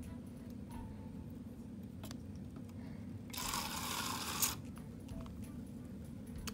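Plastic syringe squirting snow-globe water into a foam cup: a hiss of about a second, starting about three seconds in and ending with a sharp click.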